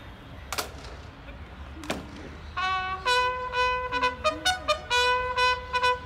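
Military bugle sounding a ceremonial call for the changing of the guard, a run of short, quick notes on a few fixed pitches starting about two and a half seconds in. Before it, two sharp knocks.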